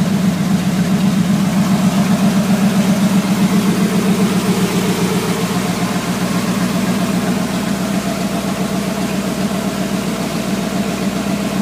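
Freshly installed carbureted V8 in a Dodge D-100 pickup idling steadily with an even, pulsing beat, during break-in with its ignition timing still set slow.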